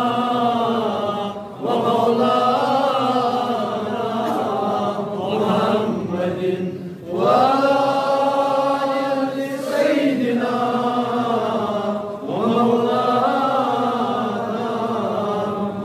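A man's solo voice chanting an Islamic devotional supplication (munajaat) in long, drawn-out melodic lines, with short pauses for breath about 1.5, 7 and 12 seconds in.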